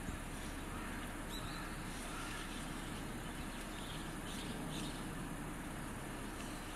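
Steady outdoor background noise with a few faint, short high-pitched chirps scattered through it.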